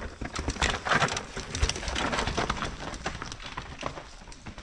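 Downhill mountain bike passing on a rough dirt and rock trail, its tyres crunching and the bike rattling over stones. Loudest a second or two in, then fading.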